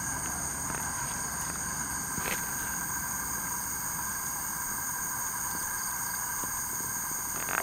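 Steady, unbroken chorus of night insects trilling at several pitches at once, with a short click about two seconds in and a brief louder handling noise right at the end.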